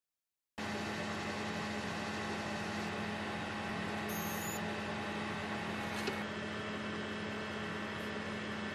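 Steady electrical hum and hiss of the Enjoywood M4 galvo laser engraver standing powered on with its red aiming light lit, not engraving. A faint click comes about six seconds in.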